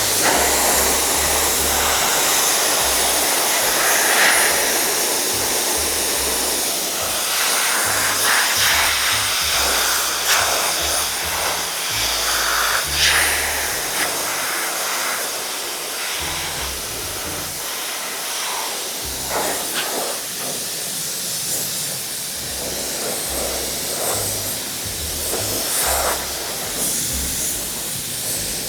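Spray adhesive gun hissing steadily as glue is sprayed onto seat foam, starting abruptly; background music with a pulsing bass plays underneath.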